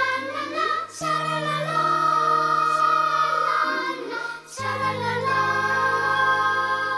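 Background music: a song with singing over held chords, the bass note changing about a second in and again a little past halfway.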